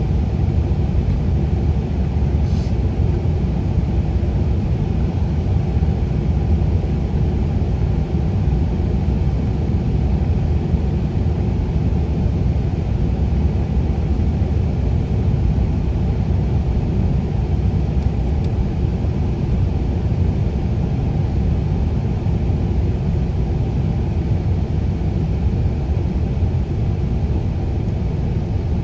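Steady low rumble of road and engine noise heard inside a moving vehicle's cabin while driving along a highway.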